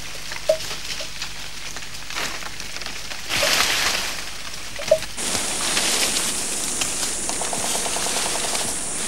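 Leaves rustling and twigs crackling as an elephant pulls at and feeds on branches, with many small snaps. It gives way to a steadier hiss of brush about five seconds in.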